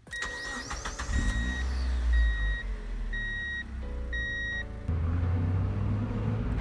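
Channel logo intro sound effect: a low rumble with a few rising swooshes at the start, then four steady electronic beeps about one a second, each lasting about half a second. Near the end, music with a strong low bass takes over.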